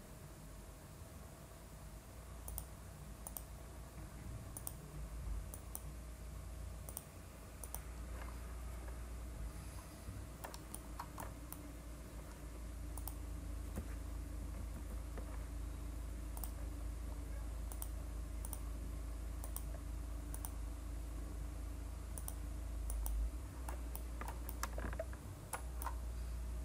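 Irregular, scattered clicks of a computer mouse over a low steady hum.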